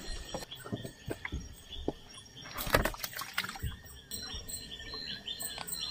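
Scattered knocks, clicks and rustles as a nylon gill net is hauled and handled against a wooden boat, with a louder knock about three seconds in. Night insects chirp steadily behind.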